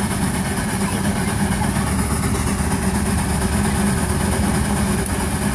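Steam traction engine working under load as it pulls a plow, a steady running sound with steam hissing from it.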